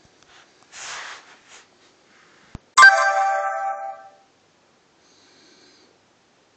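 A click, then a short electronic chime of several tones from an Asus Android tablet, starting suddenly and dying away within about a second and a half. A soft rustle comes before it.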